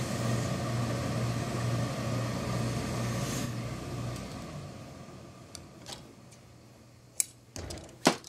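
Tailor's steam iron letting out steam: a broad hiss over a steady low electric buzz, fading away about halfway through. Two sharp clicks near the end.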